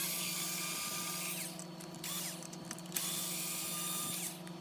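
Small electric power screwdriver running twice, each run about a second and a half with a steady whine, backing out screws from an RC truck's front bumper.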